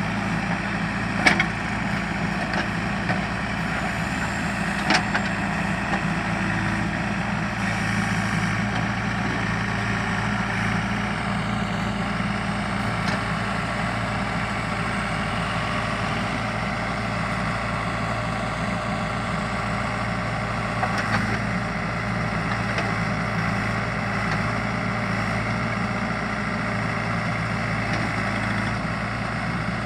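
JCB backhoe loader's diesel engine running steadily, with a few sharp knocks, the loudest about a second in and another about five seconds in.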